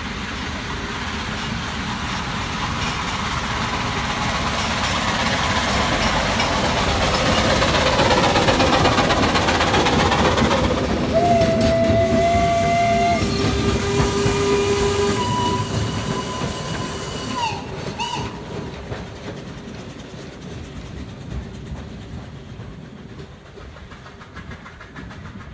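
Two narrow-gauge steam tank locomotives and their passenger train passing close by. The train noise builds to its loudest about ten seconds in and then fades. Between about eleven and eighteen seconds steam whistles sound in a few steady held tones, the last dipping in pitch as it stops.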